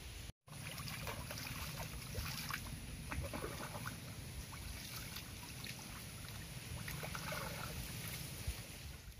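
Water splashing and trickling, with many small clicks and knocks scattered through it.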